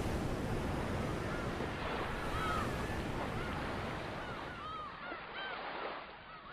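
Ocean surf washing, with gulls crying several times over it; the surf fades away about five seconds in, leaving a few last cries.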